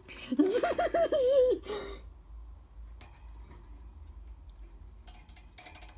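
A person's wavering, wordless vocal sound, like a short laugh or playful coo, lasting about a second and a half. Then it goes quiet apart from a single sharp click about halfway through and a patter of light clicks near the end.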